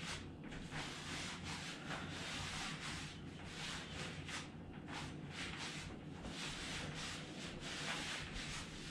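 Soft, uneven rubbing and rustling as a backpack is lowered behind the head and pressed back up in overhead triceps extensions, over a steady low hum.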